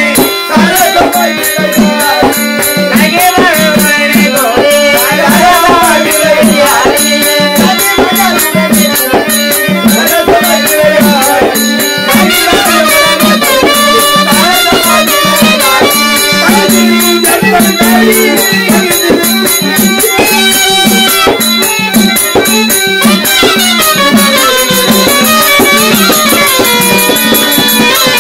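Therukoothu folk-theatre music: a wavering melodic line over a fast, dense, even percussion beat with rattling, jingling strokes.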